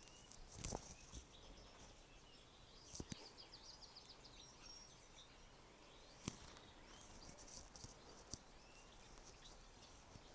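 Faint short high chirps of a small bird, scattered through near silence, with a few soft clicks.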